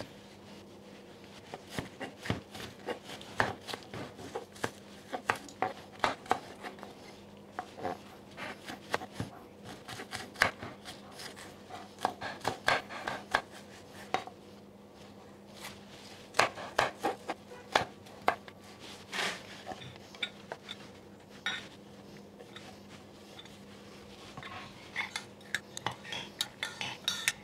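Chef's knife chopping red onion on a wooden cutting board: a long run of irregular sharp knocks. Near the end a metal spoon clinks and scrapes in a glass measuring jug as the onion is stirred into the sauce.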